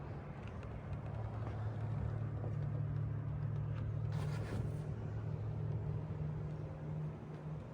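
An engine running steadily at idle, a low even hum, with a short hiss about four seconds in.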